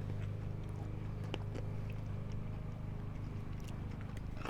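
People quietly chewing mouthfuls of fried rice, with a light clink of a fork on a plate about a second and a half in, over a steady low hum.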